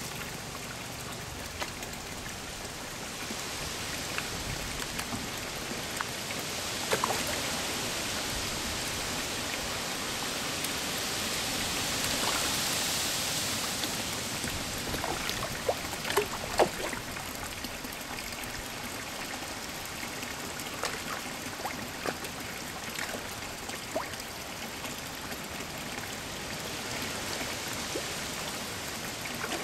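Koi and goldfish feeding on floating pellets at a pond's surface: steady splashing and churning water, with scattered sharp pops and smacks as fish gulp pellets, several in quick succession past the middle. The splashing swells for a while in the first half.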